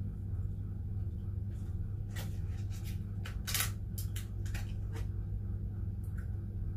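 A cream cheese tub handled and set on the table: several sharp crinkles and taps between about two and five seconds in, the loudest in the middle. A steady low hum runs underneath.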